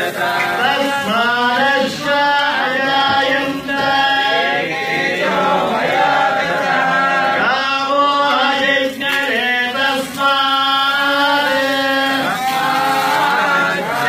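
A group of voices chanting in unison, holding long steady notes in phrases broken by brief pauses.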